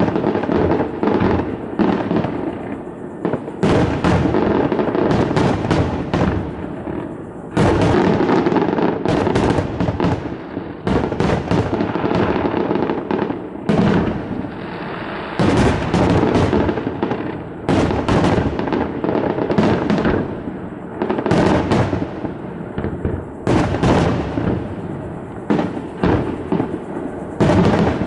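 Fireworks display: shells bursting one after another in quick, irregular succession, with a steady crackle and echo filling the gaps between the bangs.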